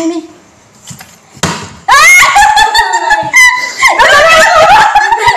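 A single knock about one and a half seconds in, then loud, high-pitched shrieking and laughter from women and a girl.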